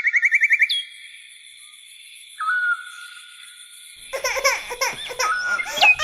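A quick run of electronic beeps, then faint steady tones, followed from about four seconds in by a baby giggling and laughing.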